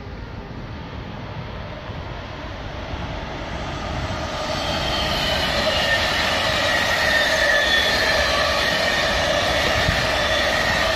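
An Intercity train hauled by a DB class 101 electric locomotive approaches and rolls past on the rails. It grows louder over the first few seconds and levels off from about five seconds in, a steady rumble with high whining tones over it.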